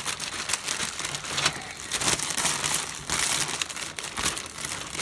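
Clear plastic parts bag crinkling and crackling in a dense, irregular run as the model kit's styrene hull halves are handled inside it.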